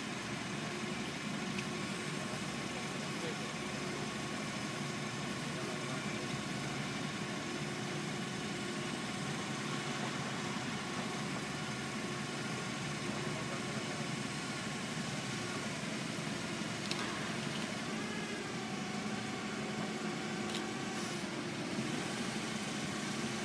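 Propane forklift engine idling steadily, with a couple of light clicks in the second half.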